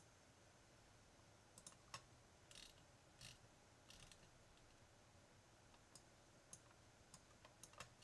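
Near silence broken by faint, scattered computer mouse clicks, about a dozen at irregular intervals.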